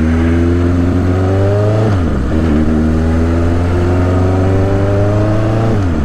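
1983 Suzuki GS1100E's air-cooled inline-four engine pulling under acceleration, its pitch climbing steadily, then dropping sharply with an upshift about two seconds in, climbing again and dropping with another upshift near the end.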